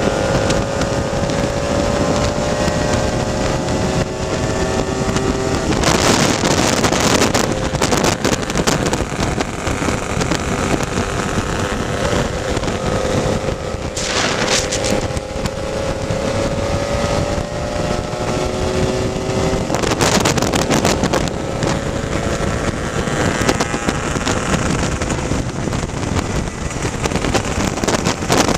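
Lambretta scooter's single-cylinder two-stroke engine running at cruising speed, its pitch creeping slowly up, under heavy wind noise on the microphone that gusts louder several times.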